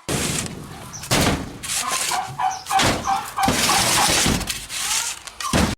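Farmyard fowl with faint short clucking calls repeated in a row near the middle, among several loud noisy rushes that come and go.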